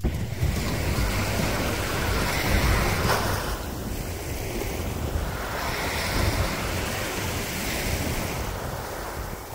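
Small waves washing up on a sandy shore, the rush swelling and fading, with wind buffeting the microphone.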